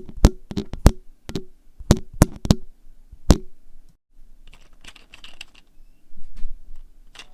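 3D-printed plastic parts clicking and knocking together hard: about ten sharp clacks, each with a short ring, over the first three and a half seconds. After a brief break comes softer, quicker clicking and rattling.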